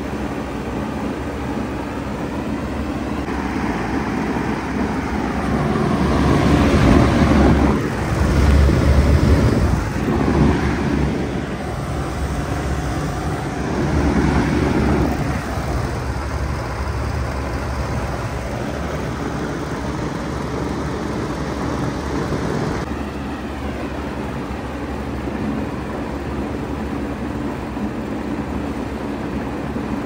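Bard wall-hung heat pump running in heat mode: a steady compressor hum under the rush of its outdoor fan, louder for several seconds in the middle.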